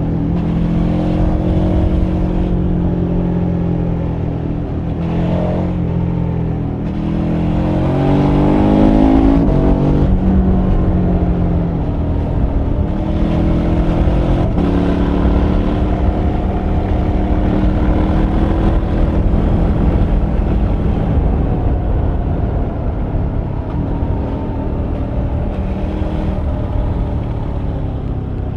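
KTM 1290 Super Adventure R's V-twin engine running at road speed: it pulls hard with a rising note about a third of the way in, drops sharply on an upshift, then runs steadily and eases off near the end. Wind rushes over the microphone throughout.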